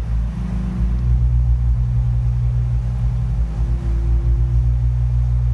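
A steady low synthesized drone from the film's score, with a fainter higher tone that fades in and out twice over it.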